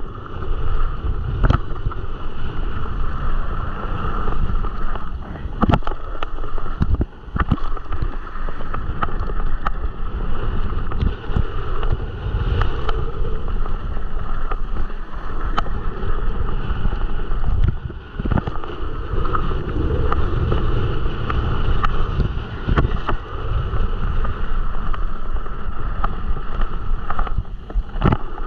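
Riding noise of a mountain bike on a dry dirt trail: wind rushing over the camera microphone and tyres rolling on dirt, with frequent short knocks and rattles from the bike over bumps and jumps.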